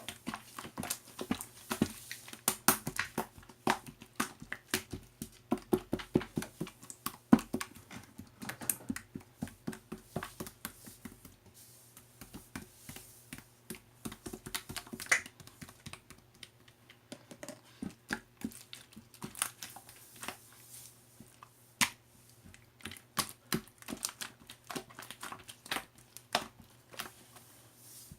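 Irregular clicking and tapping, several sharp clicks a second in clusters with short lulls, over a faint steady low hum.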